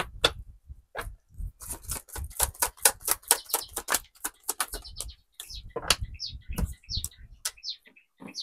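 A deck of tarot cards shuffled by hand: a quick run of card clicks and flicks, thinning out in the second half as a card is drawn and laid on the table.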